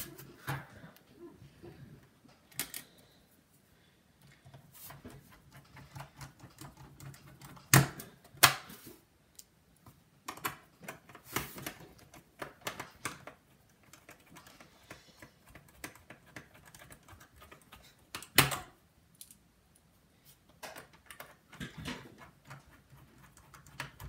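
Scattered plastic clicks and knocks of hands fitting and pressing the plastic bottom panel back onto a Dell Latitude E6430 laptop, with a few sharper knocks about eight seconds in and again about eighteen seconds in.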